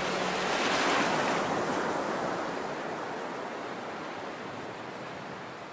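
A rushing, surf-like noise from the edit's soundtrack that swells about a second in and then slowly fades away.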